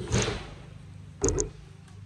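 Two short bumps as a white 5-gallon plastic bucket is handled and tipped onto its side on a table: one right at the start and a second about a second later.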